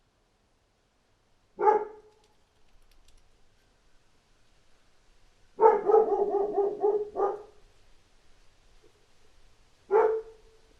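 A dog barking: one bark, then a quick run of barks lasting about a second and a half, then one more bark near the end.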